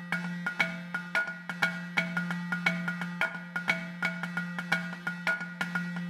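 Outro music: a quick, regular run of short struck notes over a steady low drone.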